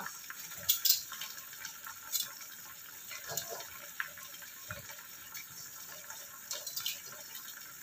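Soup simmering in a saucepan on a gas stove, with a steady hiss and fritters reheating in oil in a wok behind it, crackling sharply a few times.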